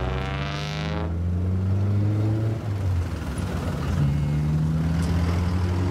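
A sports car's engine revs briefly as it pulls away. Then a flatbed car-carrier truck's engine runs low and steady, louder about four seconds in as the truck passes close by.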